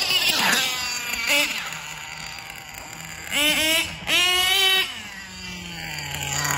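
Mugen MBX7 RC truggy's nitro engine running hard on the street: a high whine that drops in pitch as it passes near the start, then two sharp revving bursts a little past the middle, with a lower steady drone between them.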